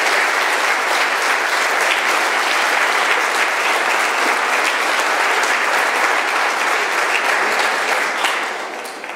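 Audience applauding steadily, the clapping dying away about a second before the end.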